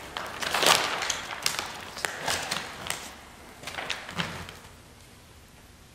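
Fabric skin of an ultralight's vertical stabilizer rustling and crinkling as it is handled, with a few sharp clicks and taps. It goes quiet in the last second or so.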